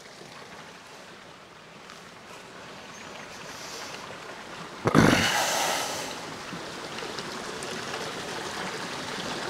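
Steady rush of flowing water around fish-farm ponds, with a sudden loud rush of noise about halfway through that fades within a second, after which the water noise stays a little louder.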